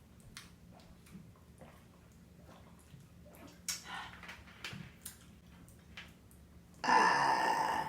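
Chewing and wet mouth clicks while eating pizza, then, near the end, a loud burp with a sudden start, lasting about a second.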